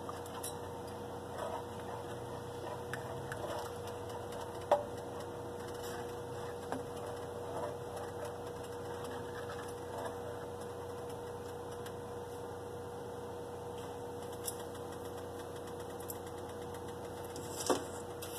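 Plastic spoon stirring melted butter and garlic in a stainless steel pot: scattered light clicks and taps, with one sharper click about five seconds in, over a steady low hum.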